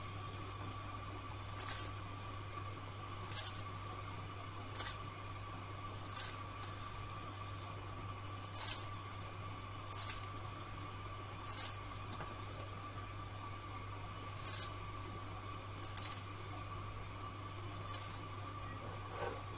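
Washed rice being poured, a portion at a time, into a pot of boiling pulao water: about eleven short splashing hisses, one every one to two seconds, over a steady low hum.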